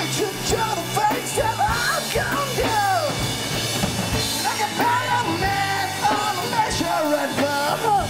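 Live rock band playing: a singer sings and shouts over electric guitars, bass guitar and a drum kit.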